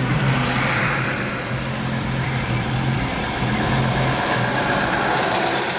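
Motor vehicle engine running steadily with a low hum, while passing road traffic swells up briefly twice.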